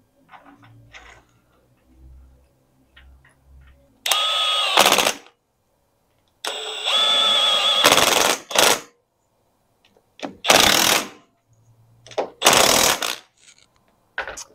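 Impact wrench running down the steering gearbox's mounting bolts in four bursts of one to two seconds each, a whine with rapid hammering. Before it come a few faint clicks and knocks as the bolts are fed in.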